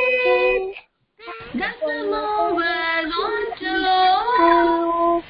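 A child and a woman singing a line of a devotional alphabet rhyme, with a short break about a second in before the tune goes on with held notes.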